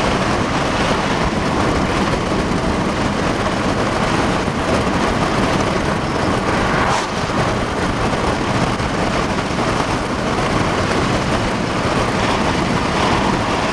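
Steady road and wind noise of a car driving, an even rush with no break.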